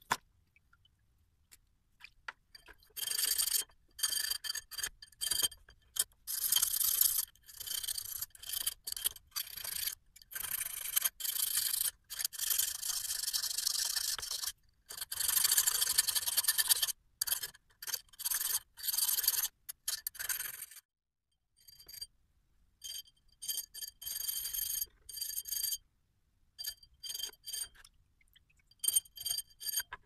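A flat metal file rasping against a small metal door-lock part in repeated short back-and-forth strokes, some quick and some drawn out, with short pauses between runs. A thin high ring sounds along with the strokes. The strokes start a few seconds in and stop briefly a little past the two-thirds mark.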